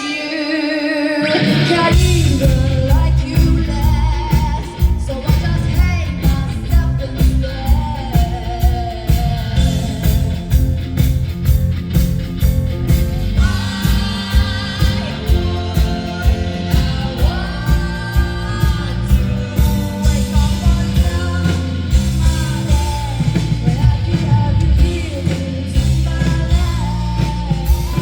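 Live rock band playing with a woman singing lead: a few held sung notes, then drums, bass and guitar come in about a second and a half in with a steady beat under the vocal.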